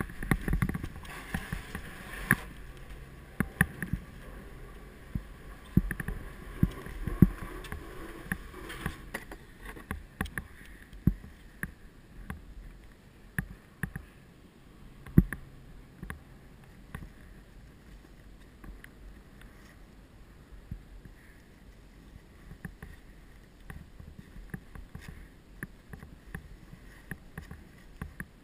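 Chairlift boarding and ride: clatter and knocks of the chair and lift station during the first several seconds, then quieter, with scattered clicks and knocks as the chair travels up the line.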